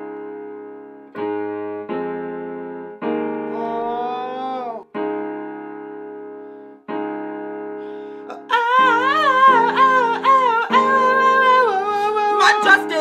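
Electronic keyboard playing sustained chords that change every second or two. A voice sings a short line over them about four seconds in, then a wavering melody from about eight and a half seconds on.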